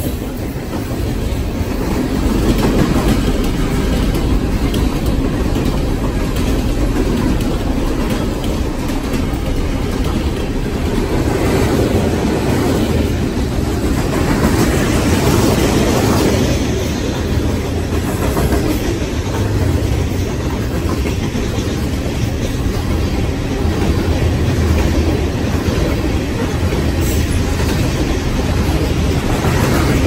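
Freight cars of a manifest train, covered hoppers and tank cars, rolling past close by: a loud, steady rumble of steel wheels on the rails.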